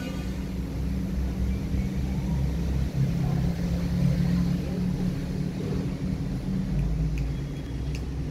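Cat growling: a low, wavering rumble held for several seconds that eases near the end, a warning growl at another cat in a standoff.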